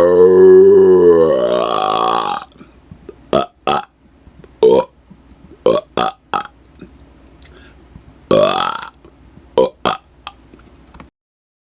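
A man's long, loud belly burp on command, its pitch wavering, that stops about two and a half seconds in; then a string of short, much quieter sounds.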